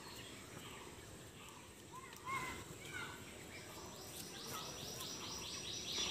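Outdoor ambience with small birds calling in short, arched chirps. From a little past halfway, a high, fast trill of evenly repeated notes joins in and runs on.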